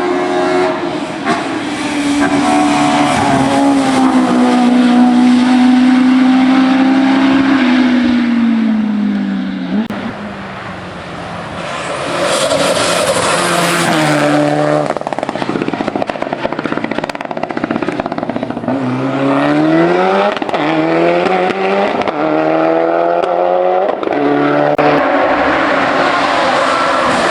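Race car engine at full throttle. The note climbs steadily, then drops at each gear change, again and again, with a quieter stretch about ten seconds in.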